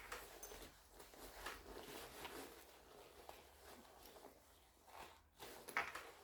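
Faint handling noises from a backpack being rummaged through: a few soft rustles and light knocks as fabric and gear are moved.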